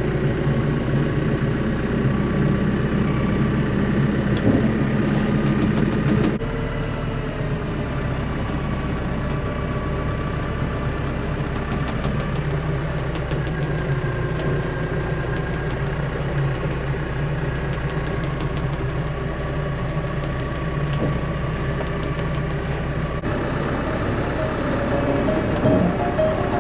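Tractor engine running steadily at low speed, heard from inside the cab. About six seconds in the sound shifts and drops slightly in level.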